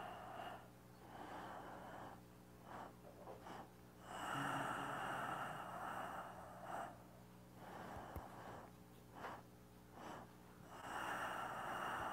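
A man's slow, deep breaths, heard as long breathy swells of about two and a half seconds each, with fainter short breaths between them: the paced breathing of a qigong stretch. A faint click about eight seconds in.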